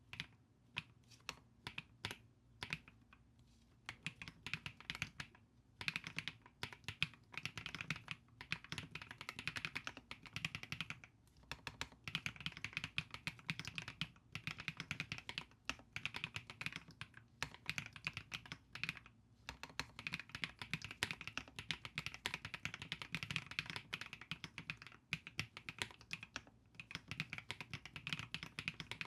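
Typing on an Epomaker Split 70 split mechanical keyboard: a few slow, separate keystrokes, then fast continuous typing from about six seconds in.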